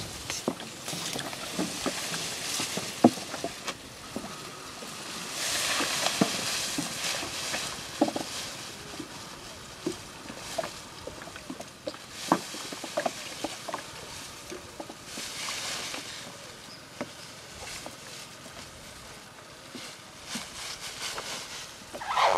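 Scattered knocks and clatter of longline fishing gear being handled in a small boat, with two stretches of water splashing, about five and fifteen seconds in.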